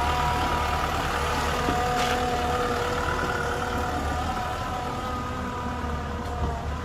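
Kubota M6040 tractor's diesel engine running as the tractor drives off, with a steady whine above the engine note. The sound grows slowly fainter as the tractor moves away.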